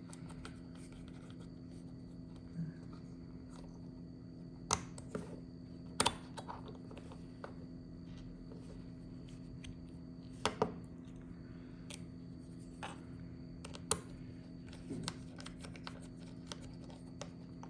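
A fidget slider with loose balls being worked by hand: faint scraping and ticking with scattered sharp clicks, the loudest a few seconds apart and a quick double click about ten and a half seconds in.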